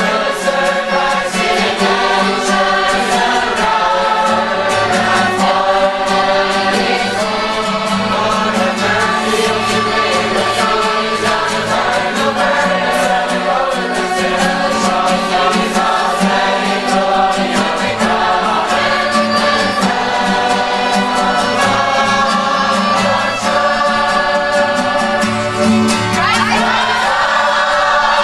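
Large choir of young men and women singing a Christian hymn together, with sustained notes.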